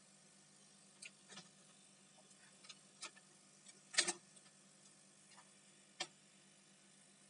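Faint scattered clicks and taps as multimeter probe tips and laptop parts are handled on a bare motherboard, with a louder brief clatter about four seconds in as the plastic cooling fan and heatsink assembly is moved, and another sharp click about six seconds in.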